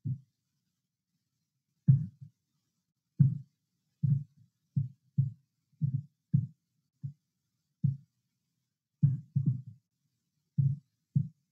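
A man's voice breaking up over a faltering live-stream connection: about a dozen short, muffled fragments cut off by dead-silent gaps, with no words getting through. This is a sign of the technical problems in the transmission.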